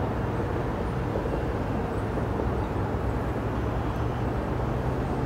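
Steady low rumble of diesel engines with a droning hum that steps up slightly in pitch about four seconds in.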